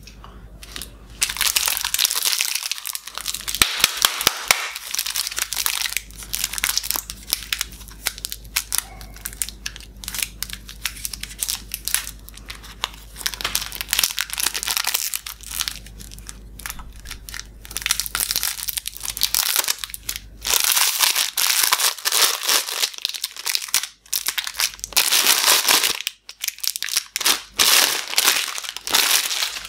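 Clear cellophane wrapper crinkling and crackling as hands work it off a large swirl lollipop, in several long bursts of dense crackle starting about a second in.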